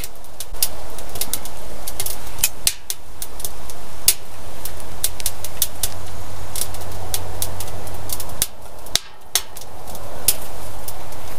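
Pine firewood crackling and popping as it burns in a wood stove: sharp, irregular pops, several close together at times, over a steady rushing noise from the fire.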